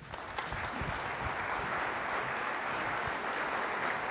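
Large audience applauding. The clapping builds quickly at the start and then holds steady.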